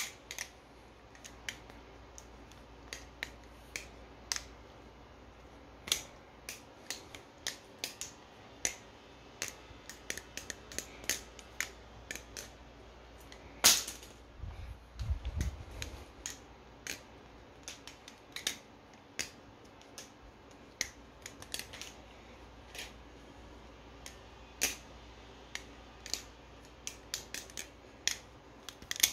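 Metal balisong trainer (a Nautilus clone) being flipped: its handles clack against each other in irregular runs of sharp clicks. About 14 seconds in, one louder crack as it drops onto the tile floor, followed by a low rumble lasting about two seconds.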